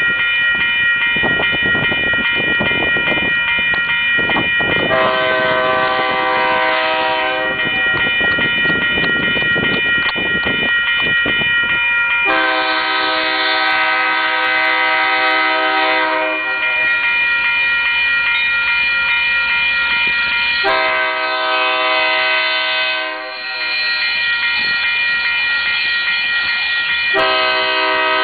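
BNSF diesel locomotive's air horn sounding a series of long blasts, each a few seconds, for a grade crossing as the freight approaches. Between blasts, steady high ringing tones carry on, which fit the crossing's warning bell.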